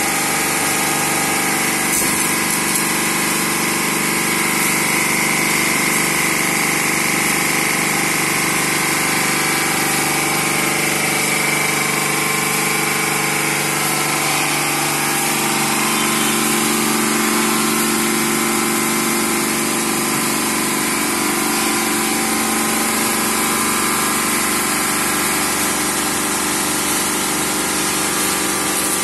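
High-pressure washer pump of an underbody car-wash system running steadily, its zero-degree rotating and oscillating nozzles spraying jets of water with a continuous hiss over a steady machine hum.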